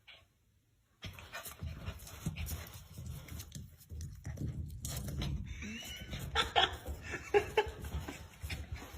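A dog panting, starting about a second in, over a low rumble.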